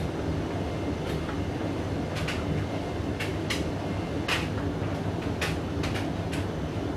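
Hoover DYN9144D3X washing machine drum turning slowly in its anti-crease tumble, with a steady low rumble and irregular sharp clicks and knocks. This is a pause between spin attempts: the blanket load has left the drum out of balance.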